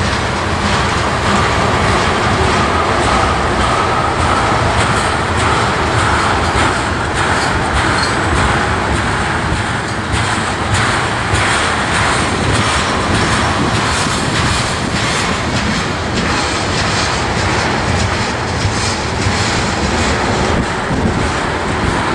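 Freight train of tank cars rolling past: steady rumble and rush of steel wheels on the rails, with a constant light clatter of wheels over the track.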